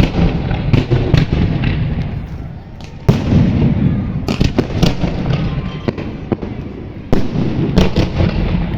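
Fireworks going off in loud volleys of rapid bangs and crackles, each volley fading away; fresh volleys start about three seconds in and again about seven seconds in.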